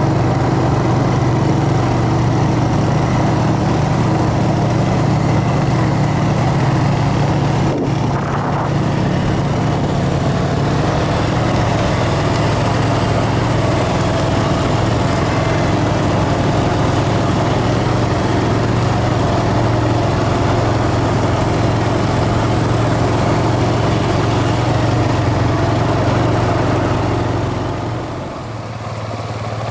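ATV engine running steadily at trail-riding speed, heard from on board, its level dipping briefly near the end.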